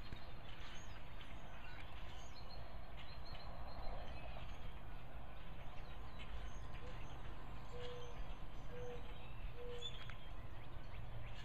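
Faint outdoor ambience: a steady low rumble with scattered faint bird chirps, and three short, evenly spaced notes about a second apart near the end.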